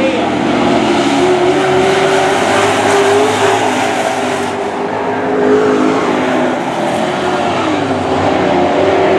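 Super truck race engines running hard on a dirt oval, their pitch rising and falling as the trucks accelerate and lift through the turns.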